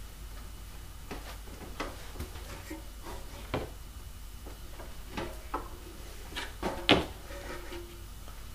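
Scattered light knocks and clicks from handling a foam-and-wood RC plane wing panel during hinging, over a steady low room hum; the sharpest knock comes about seven seconds in.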